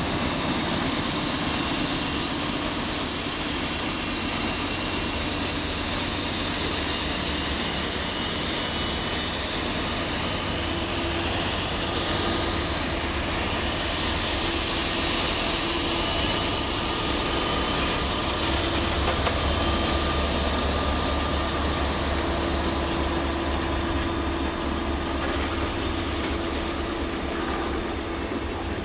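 Norfolk Southern diesel locomotives, EMD SD40-2s following GE Dash 9-40CWs, rolling slowly past close by with their engines running in a steady heavy drone. A steady humming tone joins about ten seconds in, and the engine sound eases near the end as the last unit goes by.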